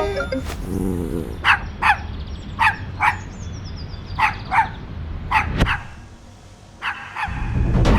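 A dog barking in quick pairs of short barks, about eight in all, with a sharp click after the last pair and a low rumble swelling near the end.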